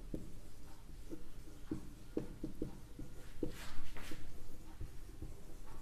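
Handwriting: irregular small taps and short scratchy strokes of a pen or marker, with a louder run of strokes a little past the middle.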